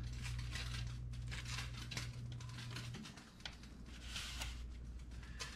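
Hands pressing and turning pieces of fish in a plate of flour, making soft rustling and patting sounds on the paper plate. A low steady hum underneath stops about three seconds in.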